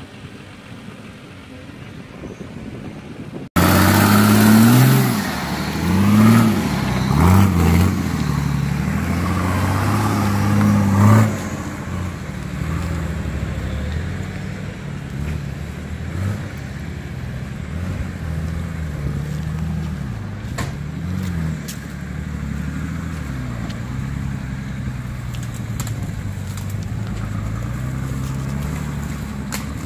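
Off-road 4x4's engine, quieter for the first few seconds, then suddenly loud and revving, its pitch rising and falling again and again. After about eleven seconds it settles to a steadier note with gentle changes in pitch.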